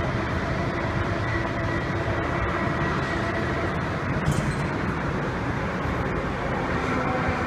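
Steady rumble of passing road traffic, with faint steady tones running through it.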